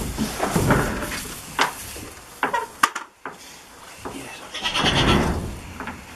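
Goats bleating: two long, raspy bleats, one at the start and one about five seconds in, with a few sharp knocks in between.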